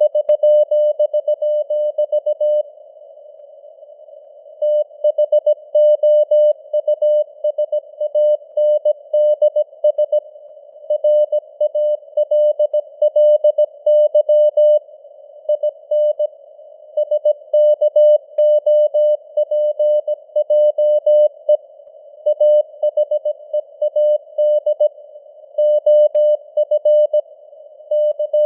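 Morse code sent at 17 words per minute as a single mid-pitched tone keyed on and off in dots and dashes, over a narrow band of simulated radio hiss. There is a pause of about two seconds about three seconds in.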